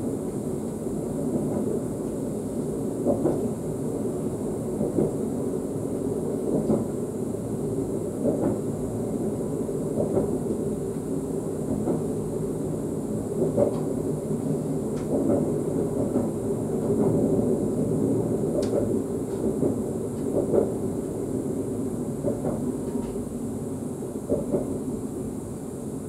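Inside the cab of an ES2G Lastochka electric train running along the track: a steady rumble of the running gear, with short wheel knocks about every second and a half to two seconds, some in quick pairs, as the wheels pass rail joints.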